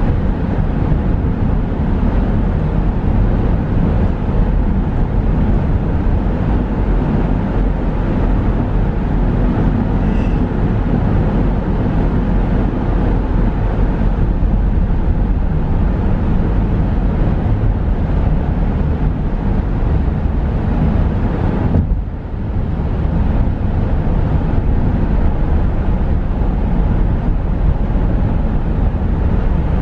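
Steady road and engine rumble of a car driving through a highway tunnel, heard from inside the car. The level dips briefly about three-quarters of the way through.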